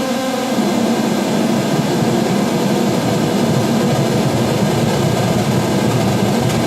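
Analog modular synthesizer's sawtooth oscillator with pink noise patched into its exponential frequency input: a continuous, loud, rough low buzz with no steady pitch.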